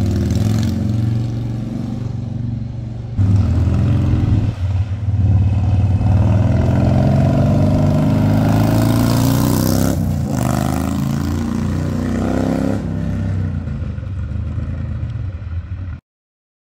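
Harley-Davidson Sportster 1200's air-cooled V-twin running and being revved through its exhaust. It gets suddenly louder about three seconds in, climbs in pitch through the middle, drops back and climbs again, then settles lower before cutting off abruptly near the end.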